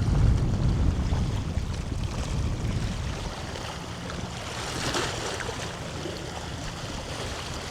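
Wind buffeting the microphone, heaviest in the first few seconds and then easing, over a steady wash of bay water along the shore.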